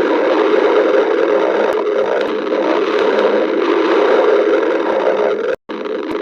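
Close-up stomach growling: a continuous rumbling noise, broken by a sudden brief cut to silence about five and a half seconds in.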